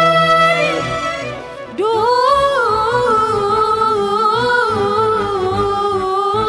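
A solo voice chanting an Arabic religious praise poem in long, drawn-out, ornamented notes. One phrase fades out about a second in and a new held phrase begins just before the two-second mark.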